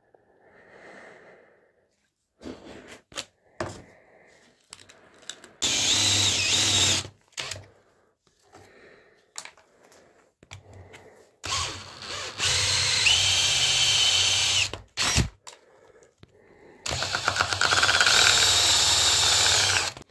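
Cordless drill running in three long bursts, its bit boring into the cell compartments of a cut-open lead-acid car battery, the whine shifting as the speed changes. Short knocks and rattles come between the bursts.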